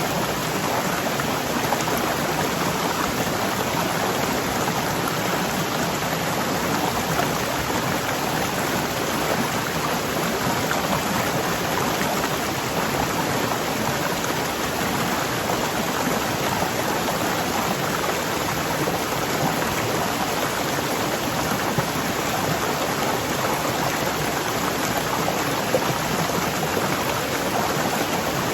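Waterfall rushing: a steady, loud roar of falling water, even and unbroken, with no lulls or changes.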